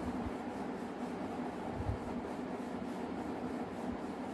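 Pen writing on paper: a steady scratching and rubbing of the tip across the sheet, with a few soft low thumps from the hand on the table and a faint steady low hum underneath.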